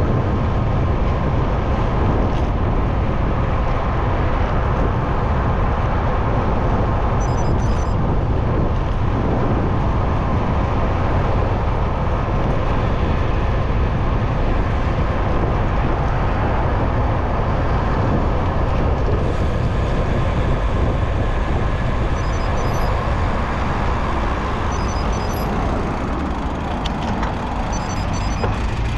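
Steady rush of wind on the microphone of a moving bicycle, mixed with road traffic noise.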